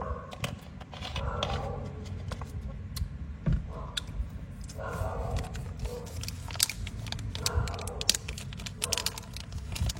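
Sharp metal clicks and clinks, irregular and in clusters, as brass Zippo-style lighters are handled and their hinged lids flicked, with a few short ringing tones among them.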